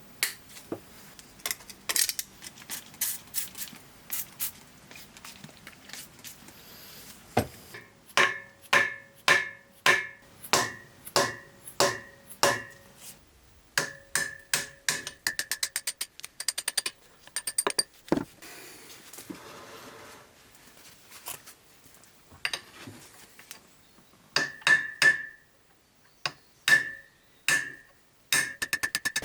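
Hammer blows on the metal parts of an old water turbine being dismantled: sharp strikes, several runs of about two a second, each ringing briefly, with stretches of rapid light clicking in between.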